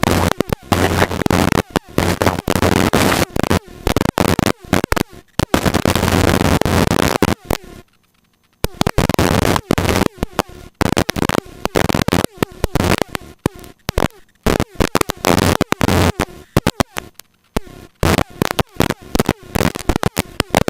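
Helicopter cabin noise, harsh and crackling, that keeps cutting in and out many times, with a low hum in places; it drops to near silence for about half a second a little before halfway through.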